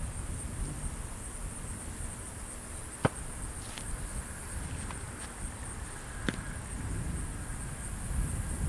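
A sharp slap about three seconds in as a thrown football is caught in the hands, then a softer knock about three seconds later. Underneath runs a steady high trill of insects and a low rumble.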